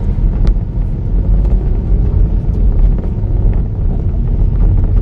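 Inside a moving car's cabin: a steady low rumble of engine and road noise, heavy in the bass, with a few faint clicks.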